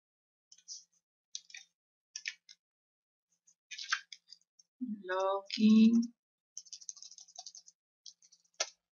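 Computer mouse clicks, a few single clicks spaced about a second apart, then a quick run of keyboard key presses about two-thirds of the way through.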